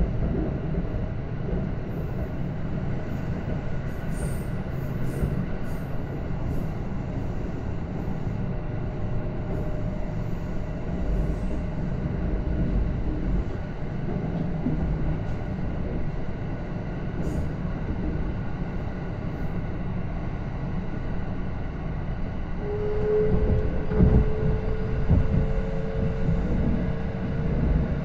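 Kintetsu electric train with GTO-thyristor VVVF inverter running on the rails, a steady low rumble of wheels and bogies. About 23 s in, a whine from the inverter and traction motors sets in and slowly rises in pitch as the train powers, and the rumble grows louder.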